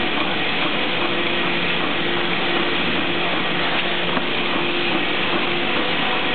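Steady running noise of a bottle-cap conveyor line and its machinery: an even mechanical rush with a faint steady hum underneath.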